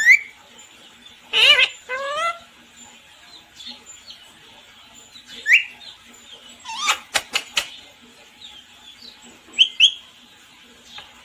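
Pet parrot calling: short squawks with a bending pitch near the start, then scattered short chirps, a quick run of sharp clicks about seven seconds in, and two brief chirps near the end.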